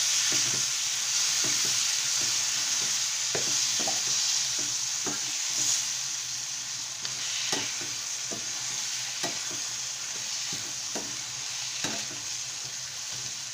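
Chopped tomatoes and onions sizzling in hot oil in a metal pan while a spatula stirs them, knocking and scraping against the pan many times at an uneven pace. The sizzle eases slightly as the tomatoes settle into the oil.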